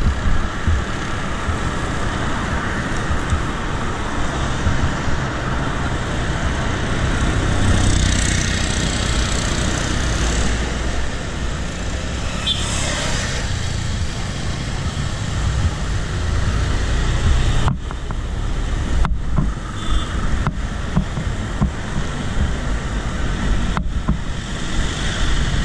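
Road traffic noise heard from a moving bicycle: a steady low rumble with vehicles passing about 8 and 13 seconds in. The sound drops out briefly several times near the end.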